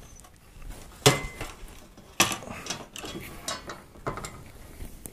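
Metal parts of a PC case being handled: a sharp clank about a second in, the loudest, another about two seconds in, then several lighter knocks and rattles.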